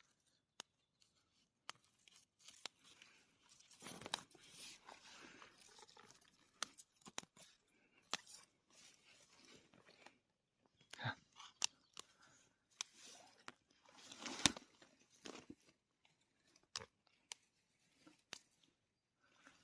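Fiddlehead fern stems snapped off by hand, giving scattered sharp cracks, with short spells of rustling leaves and undergrowth between them.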